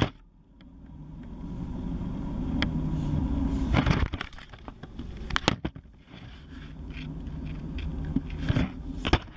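Class 158 diesel multiple unit heard from inside the carriage: a steady low rumble and engine hum that builds over the first few seconds. Several sharp knocks and clicks come from the camera being handled against the table and window sill.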